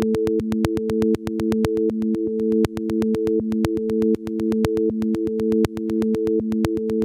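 Electronic sine-wave tones from a Max patch, a few steady low pitches switching on and off in an interlocking rhythmic loop, over a fast, even train of sharp clicks.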